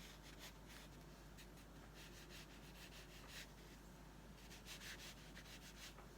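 Faint scratchy brushing of a watercolour brush on paper, laying down short strokes that come and go in irregular runs.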